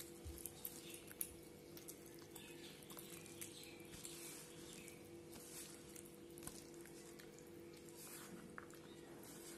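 Faint wet eating sounds: a person chewing a mouthful of fried katla fish and pulling its flesh apart with the fingers, small smacks and clicks that come thickest in the first second or so. A faint steady hum lies underneath.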